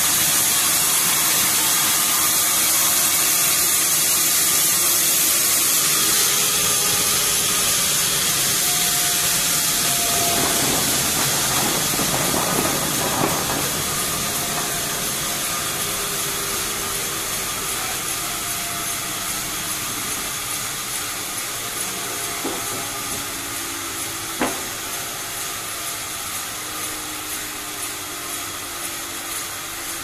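Sawmill band saw running and cutting teak logs, a steady loud hiss with faint shifting tones that grows gradually quieter. A few light knocks come in the second half.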